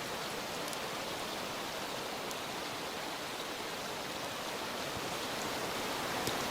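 Steady sizzling hiss of food cooking over a wood campfire, with a few faint crackles.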